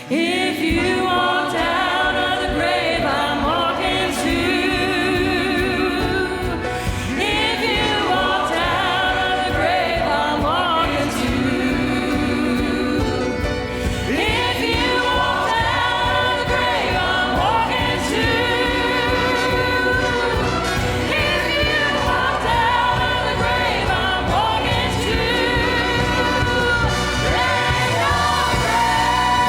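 Worship choir singing a gospel song over orchestra accompaniment, the full ensemble coming in together at the start and carrying on at a steady, loud level.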